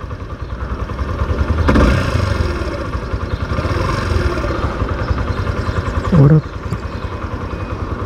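Motorcycle engine idling with a steady low pulse while stopped at a traffic light. About six seconds in there is a short, loud, voice-like sound.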